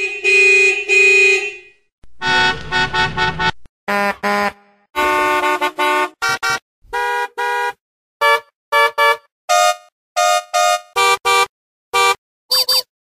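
A run of car horn honks of different pitches: two long honks at the start, then many short blasts in quick groups, each one separate with brief silences between.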